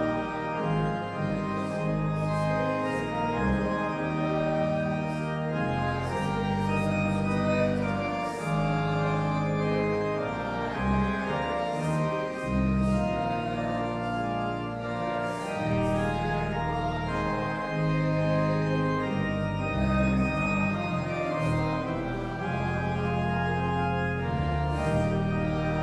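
Church organ playing: sustained chords over a bass line that moves from note to note every second or so.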